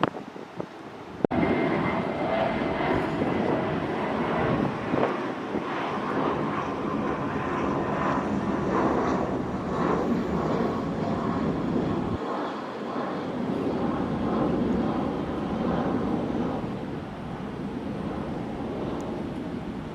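Jet airliner's engines: a loud, steady rush with a faint whine, starting abruptly about a second in and easing off slightly near the end.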